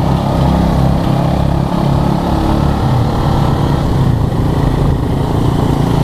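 Tuk tuk (motorcycle-driven three-wheeled mototaxi) engine running steadily while riding, heard from on board with road and wind noise.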